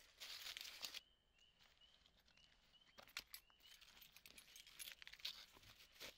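Faint rustling and crunching of footsteps in dry leaf litter, loudest in the first second. In the quieter middle stretch a bird gives a short rising chirp about twice a second.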